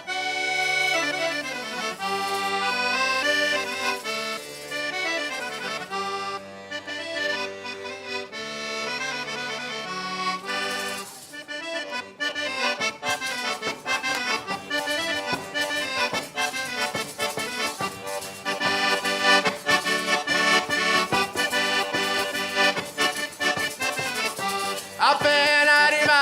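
Accordion playing a traditional folk tune as background music: slow held chords at first, then a faster rhythmic passage from about halfway through.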